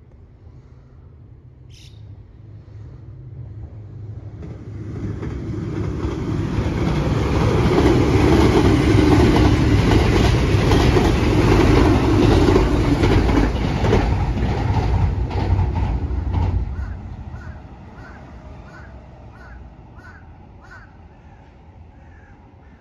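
JR Kyushu 787-series electric train passing at speed: its running noise and wheels on the rails build over about five seconds, hold loud, then fade away about seventeen seconds in. After it, a crow caws repeatedly, about two calls a second.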